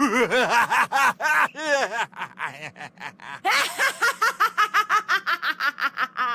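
Plotagon character laugh sound effects, two back to back: a lower laugh of short 'ha' pulses that slows and tails off, then after a brief break a higher, quicker cackle of about seven pulses a second that cuts off abruptly near the end.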